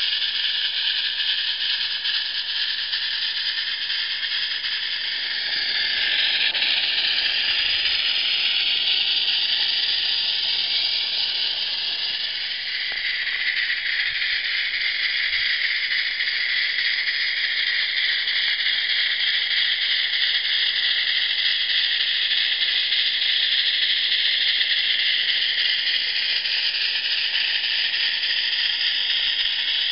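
Live-steam Accucraft Shay geared locomotive working slowly under a heavy load, its exhaust steam sounding through a Summerlands chuffer as a steady hissing chuff, a little louder from about six seconds in.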